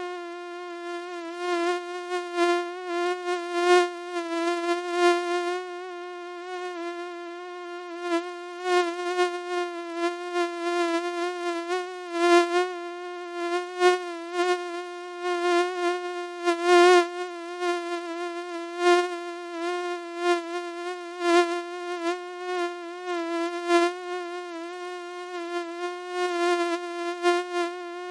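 Mosquito whining in flight: a steady, high buzzing tone with many overtones, wavering a little in pitch and swelling and fading in loudness over and over.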